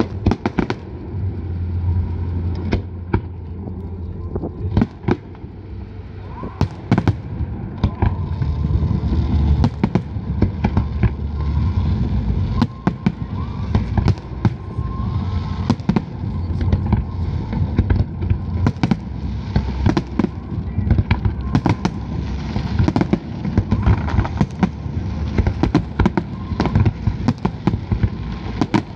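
Large aerial fireworks display: shell bursts banging in quick succession over a constant low rumble, growing denser and louder from about eight seconds in.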